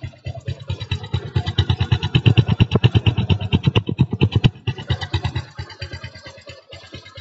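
Bajaj Discover 135cc single-cylinder engine running with a fast, even pulsing beat. It makes the engine noise the owner puts down to a slack timing chain. It is louder for a few seconds, then drops back to a quieter run about halfway through.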